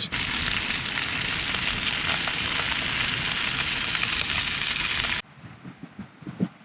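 Crayfish tail meat sizzling in olive oil in a hot frying pan, a steady loud frying hiss that cuts off abruptly about five seconds in. Faint scattered clicks follow.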